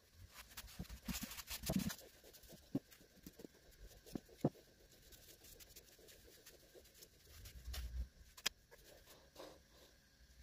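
Faint handling noises of gloved hands rubbing oil into a wooden model and turning it over on a workbench: soft scratchy rubbing with scattered light knocks and clicks of wood on wood.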